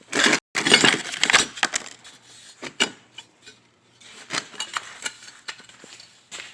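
Clattering and knocking of metal parts being handled: a dense rattle for about the first two seconds, then scattered clinks and taps.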